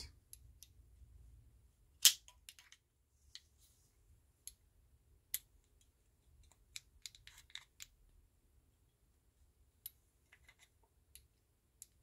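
Scattered sharp plastic clicks and taps as a metal key blade is worked into a flip-key remote shell by hand, the loudest click about two seconds in. The blade is a tight fit and has to be fiddled to go in.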